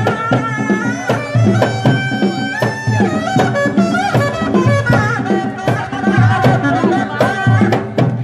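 Sundanese tarompet (double-reed shawm) playing a wavering, ornamented melody over kendang hand drums beating quick, frequent strokes.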